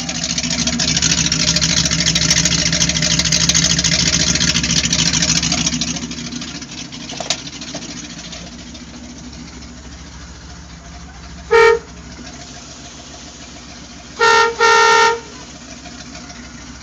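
1977 Ford F-350 pickup's engine idling, loudest over the first six seconds. The truck's horn sounds three times: one short honk about halfway through, then two more a few seconds later, the second one longer.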